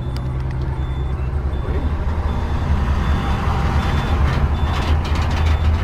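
The motorhome bus's engine runs with a steady low hum, heard from inside the vehicle. Over it, a high electronic beep repeats about every three-quarters of a second.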